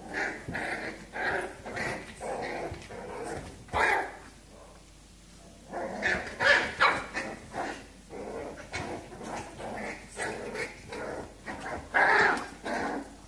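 Two puppies play-fighting, with short bursts of growling and yapping and a few louder barks among them.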